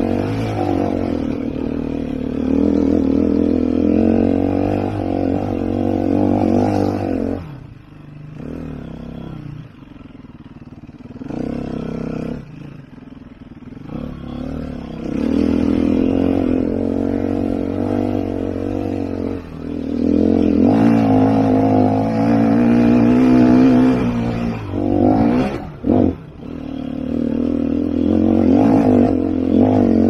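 Sherco 3.0i F single-cylinder four-stroke enduro engine heard from on the bike while riding a dirt trail, the pitch rising and falling with the throttle. In the middle it drops to low revs and runs quieter for several seconds, then opens up again, with two brief throttle chops near the end.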